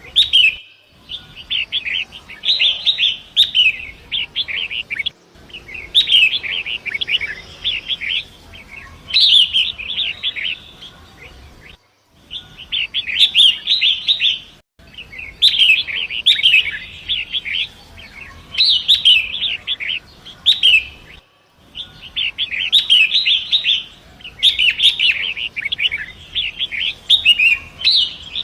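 Long-tailed shrike (pentet) singing in runs of rapid, high chattering notes, each a few seconds long with short pauses between, over a faint steady rush of river water.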